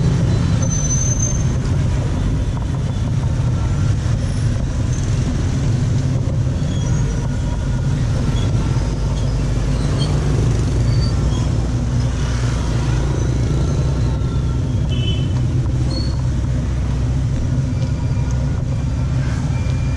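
Steady low drone of motorbike engines in dense scooter traffic, with a few brief high-pitched beeps scattered through it.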